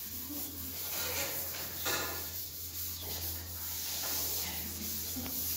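Classroom room tone: a steady low hum and hiss with faint, distant voices, and a short knock about two seconds in.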